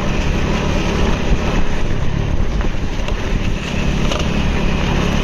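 A motor vehicle's engine running steadily at speed, with strong wind noise on the microphone.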